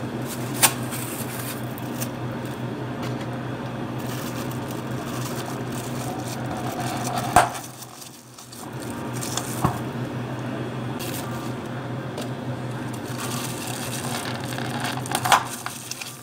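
Thin plastic film crinkling as it is wrapped over the tops of iced drink cups, with a few sharp clicks as clear plastic dome lids are pressed on, over a steady low hum.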